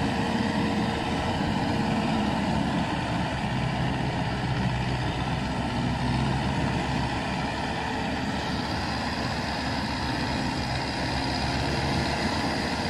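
Case IH 80 tractor's diesel engine running steadily under load while it pulls a plough through the soil.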